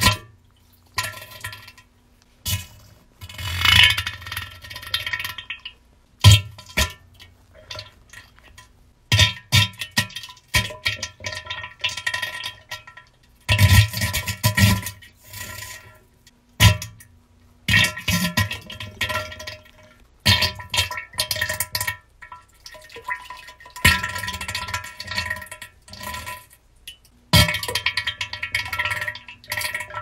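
Explosive diarrhea sounds: wet, sputtering flatulence in irregular bursts of a second or two, with short pauses between them.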